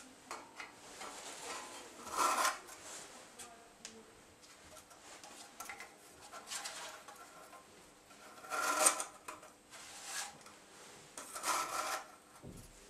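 Metal parts of a hand-held Stirling engine generator assembly scraping and rubbing as it is lifted and turned over, in several short scrapes. The loudest come about two seconds in and near nine seconds.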